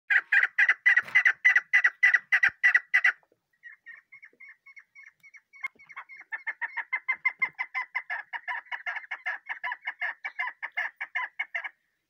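Young chukar partridge (chakor) calling a rapid series of clucking chuk notes: a loud run of about four a second, a fainter stretch, then a long even run of about five a second that stops shortly before the end.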